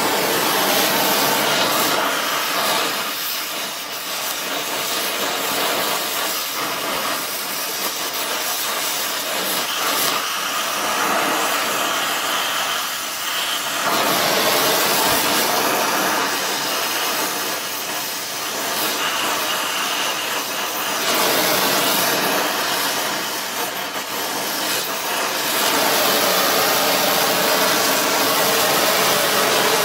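Gas torch flame hissing steadily while brazing a crack in a cast-iron exhaust manifold with brass rod, the hiss swelling and dipping every few seconds as the torch is worked.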